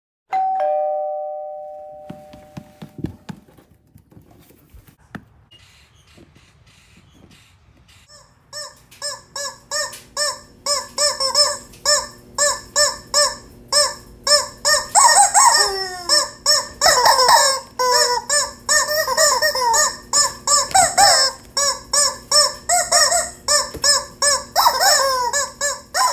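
A single ringing note at the start that fades over a few seconds. From about eight seconds in, rubber chickens squeak in a rhythmic tune, about two squeaks a second over a low steady backing, growing louder midway.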